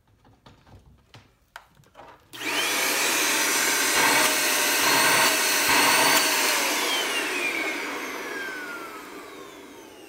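A Fuller Brush Mini Maid corded 600-watt hand vacuum is switched on about two seconds in, after a few light clicks. Its motor starts suddenly and runs loud and steady with a high whine for about four seconds. Then it is switched off and the motor winds down, the whine falling in pitch as it fades.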